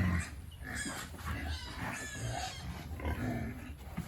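Pigs grunting and calling: a string of short, irregular calls.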